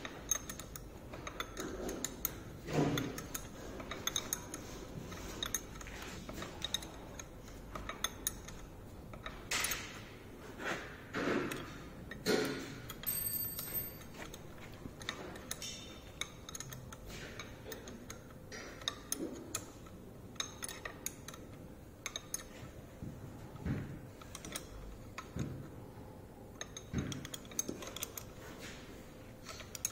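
Metal hand tools clinking, scraping and knocking at irregular moments as a puller is fitted with spanners to the shaft end of a Tesla Model S drive motor, to draw out its rotor.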